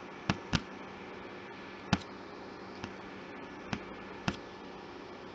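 Computer mouse clicks, about six short sharp single clicks spread irregularly, over a faint steady hum.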